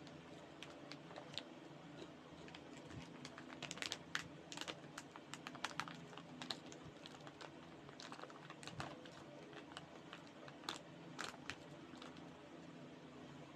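Crinkly plastic snack bag being handled: a scatter of light, irregular crackles, busiest about four to six seconds in and again around nine to eleven seconds, over a faint steady hum.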